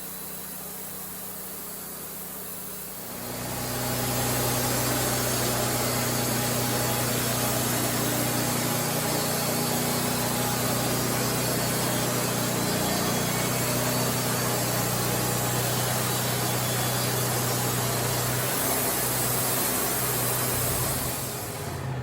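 A machine starts up about three seconds in and runs steadily, with a low hum under a loud, even rushing noise, then eases off near the end.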